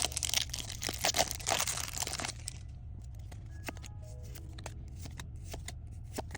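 Foil Pokémon booster-pack wrapper crinkling and tearing open for about the first two seconds, then soft clicks and rustles of cards being handled, with faint background music.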